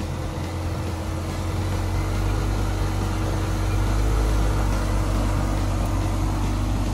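Jeep Cherokee XJ engine running at low revs as the Jeep crawls slowly down a rutted dirt trail, a steady low drone that grows a little louder about two seconds in.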